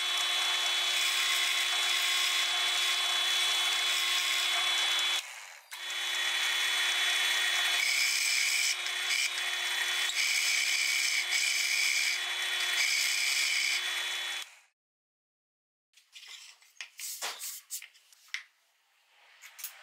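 Drill press running with its bit boring into plywood. The motor runs steadily, stops briefly about five seconds in, starts again, and shuts off about fourteen seconds in. A few scrapes and knocks of wood on the table follow.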